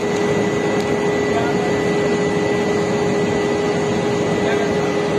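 Steady mechanical hum and rushing noise from a large cargo ship's machinery, with a few held tones and no change in level.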